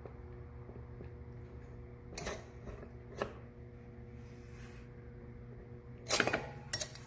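Metal parts being handled, with light clicks about two and three seconds in and a louder clatter of metal on metal about six seconds in as the cylinder head comes off a Honda Grom's single-cylinder engine, over a steady low hum.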